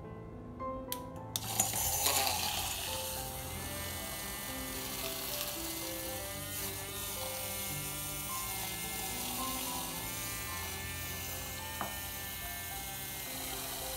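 Handheld electric milk frother whisking coffee in a stainless steel pitcher: a small motor's buzzing whine with a slightly wavering pitch, switched on about a second and a half in and running steadily, with soft background music underneath.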